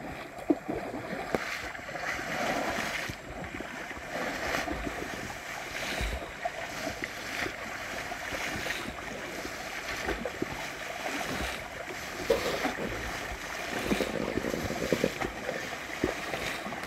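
Shallow water sloshing and splashing irregularly as people wade through it, driving fish toward a gill net, with scattered small knocks and splashes.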